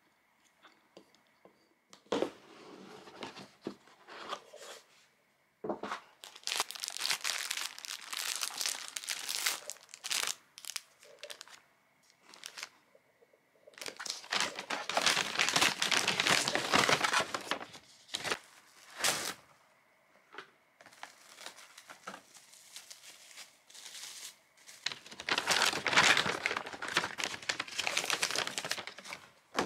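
Packaging crinkling as it is handled, in several long bouts with short pauses between.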